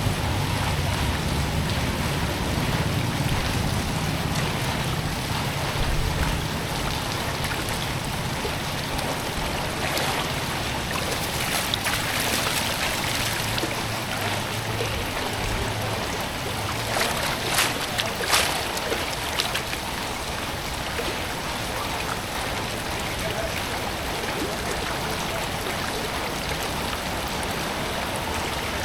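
Water rushing steadily, with a few short sharp knocks or splashes about seventeen to eighteen seconds in.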